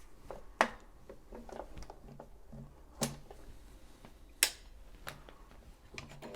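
Sparse clicks and light knocks from handling a sewing machine as it is set up for a test stitch, with three sharper clicks standing out.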